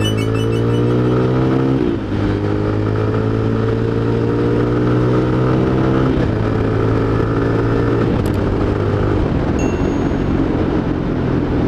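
Honda Tiger Revo's single-cylinder engine running under way, its pitch rising steadily as the motorcycle accelerates in each gear and dropping at upshifts about two and six seconds in.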